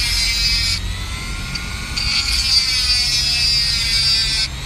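Handheld rotary tool with a small cutoff disc grinding through a stainless steel ring stuck on a finger: a high-pitched grinding hiss over the motor's whine. The grinding drops away about a second in, comes back about two seconds in, and stops again near the end, with the cut nearly through.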